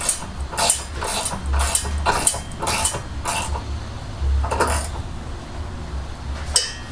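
Irregular metallic clinks and rattles as the exhaust tailpipe and its hanger bracket are handled and worked into place.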